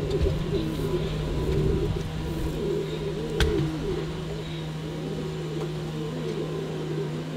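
Pouter pigeons cooing over and over in warbling phrases. A steady low hum runs underneath, and there is a single sharp click about three and a half seconds in.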